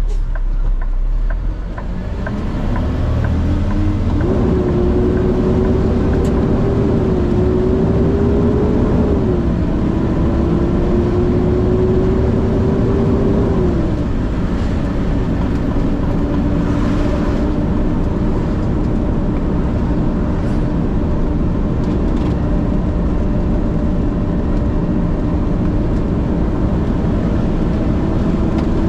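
Diesel truck engine pulling away and accelerating through about four gear changes, its whine climbing and dropping back at each shift, then running steadily at cruising speed.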